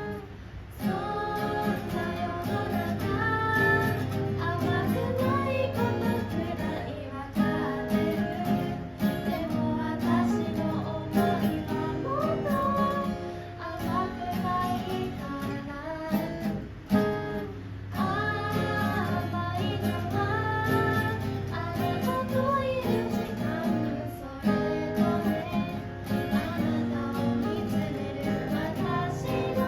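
Acoustic guitar strummed in chords with a voice singing the melody over it.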